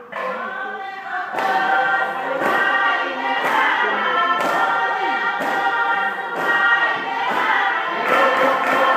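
A group of voices chanting a Fijian meke song in chorus, with sharp beats marking time about once a second that come faster near the end.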